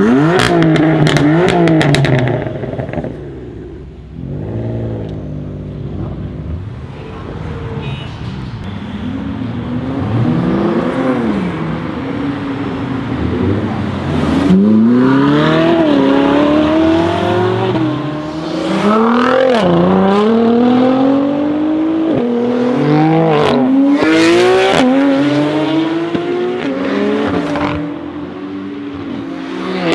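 BMW M4 F82's twin-turbo inline-six through a titanium Akrapovic exhaust, accelerating hard again and again. The pitch climbs and drops back at each gear change, with a few sharp exhaust cracks.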